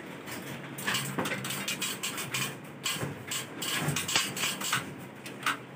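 Irregular knocking and clicking as insulated copper refrigerant pipes are handled and fitted against the metal frame of a ceiling-suspended air conditioner.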